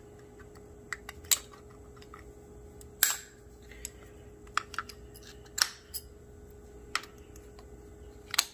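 Scattered sharp metal clicks and clinks from hand tools worked around an engine's timing chain, the loudest near the end as side cutters snip the zip tie that held the chain in place.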